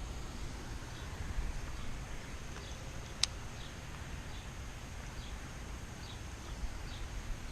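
Outdoor ambience: faint, short chirps from a small bird or insect repeating at an even pace over a low rumble, with one sharp click about three seconds in.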